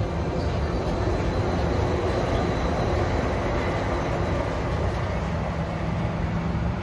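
Disneyland Railroad passenger train running along the track: a steady rolling noise with a low hum, heard from on board.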